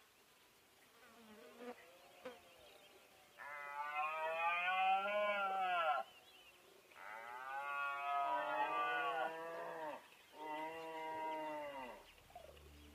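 Red deer stag roaring in the rut: three long bellows, each rising and then falling in pitch and lasting two to three seconds, after a fainter call.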